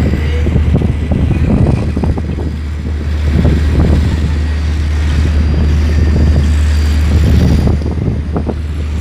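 Wind buffeting the microphone in irregular gusts over a steady low hum.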